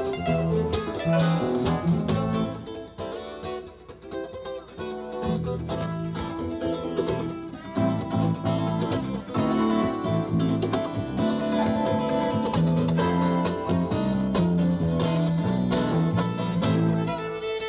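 A live band playing, led by a bowed fiddle and a strummed acoustic guitar with keyboard and drums, in a country/bluegrass style; the music eases off about three seconds in before picking back up.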